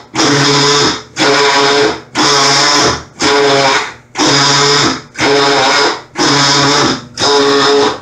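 Whirlpool top-load washer running its wash cycle loudly in strokes about once a second, each a pitched motor whir with a harsh, terrible rattling. The owner traced the rattle to an object stuck against the motor in the tray underneath.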